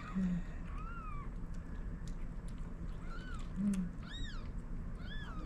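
Newborn kittens mewing: about four short, high-pitched cries that rise and fall, roughly one a second.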